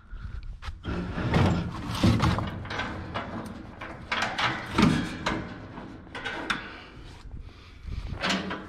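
Scrap metal being dragged and shifted: a run of rough scraping and sliding sounds with a few knocks, in several separate pushes.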